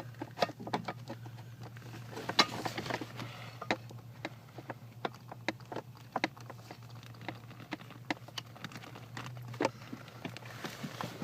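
Irregular light clicks, taps and knocks as the heater core's metal coolant lines are worked into place by hand, over a steady low hum.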